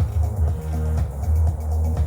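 Electronic dance music with a heavy, steady bass beat.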